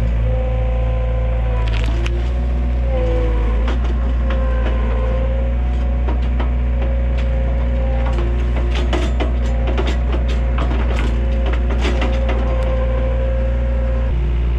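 Takeuchi TL130 compact track loader running with a steady low engine drone and a wavering whine, while wood cracks and splinters again and again as the machine breaks through trees and brush.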